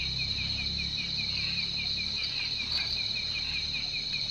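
Crickets and other night insects calling together. A steady high trill runs under a quick, evenly pulsed chirping.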